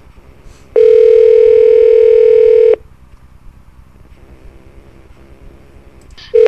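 Telephone ringback tone over the line: one steady two-second ring while the call connects, over faint line hiss, with a brief tone blip just before the end.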